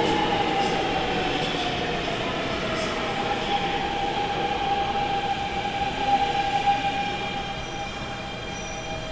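A Daegu Metro Line 1 subway train braking to a stop at the platform. Its whine falls in pitch over the first few seconds as it slows, then holds steady over a rumble and fades toward the end.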